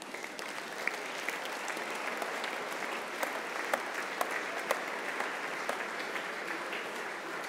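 A large seated audience applauding: dense clapping that swells over the first second and then holds steady.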